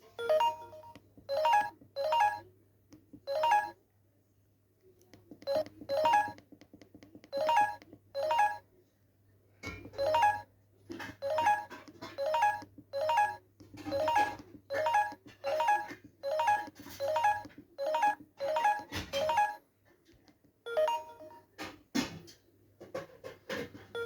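Ringtones played through a Samsung GT-S3600i mobile phone's loudspeaker: short electronic melodic notes repeating in phrases. The pattern changes about ten seconds in, and there are brief pauses between tunes.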